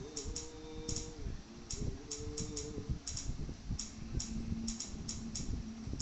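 Sparse audio played through home-theatre speakers: sharp, irregularly spaced ticking clicks over a few held low notes that change pitch, with soft low thuds underneath.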